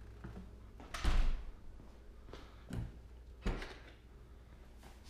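Car door being opened to get in: a few clunks and knocks, the loudest about a second in and a sharp click about three and a half seconds in, over a faint low hum.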